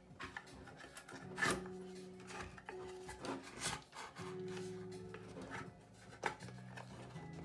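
Scrapes, rubbing and light clicks of small parts being worked loose against the aluminium case of a Mac mini A1347 during disassembly, sharpest about a second and a half in. Background music with held notes runs underneath.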